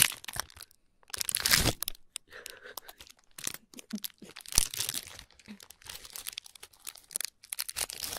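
Clear plastic snack wrapper crinkling and tearing in irregular bursts as it is pulled open by hand.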